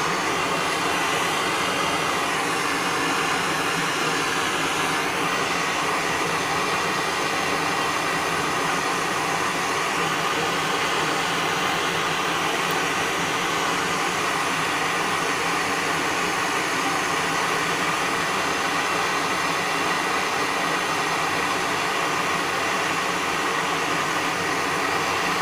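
MAPP gas torch burning steadily with a continuous rushing hiss, heating silver and tin in a borax-glazed crucible to melt them together.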